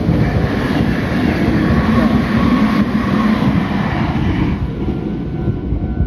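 Red Meitetsu electric train passing close by, its wheels rumbling on the rails with a faint high steady tone over the rumble, dying away about four to five seconds in.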